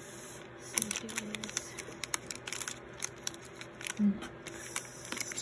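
Foil blind-bag toy pouch being handled and picked up, crinkling with irregular crackles.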